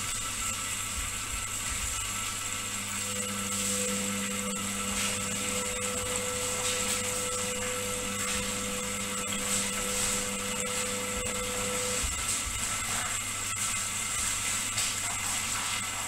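Indesit front-loading washing machine tumbling a wet load of towels in the wash: the drum motor runs steadily with a constant hum. A steady whining tone from the machine comes in about three seconds in and stops about twelve seconds in.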